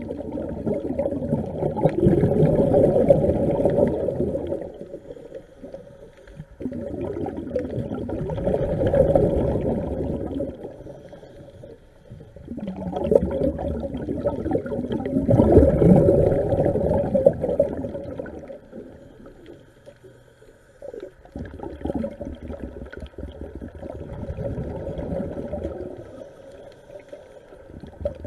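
A diver's exhaled bubbles rumbling and gurgling underwater, in four long surges with quieter gaps between them, about one breath every six or seven seconds.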